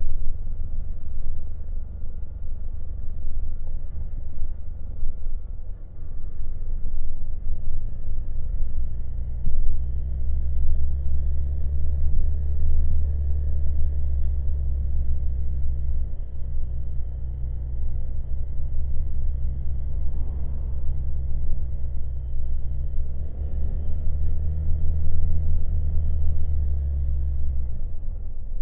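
Honda Monkey's single-cylinder four-stroke engine running under way, a steady low engine note. It gets stronger about ten seconds in and eases off just before the end.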